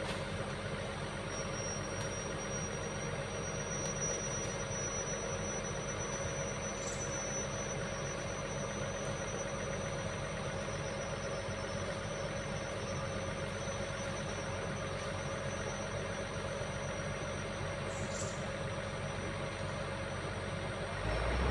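Heavy earth-moving machine's engine running steadily, with a thin high whine over it.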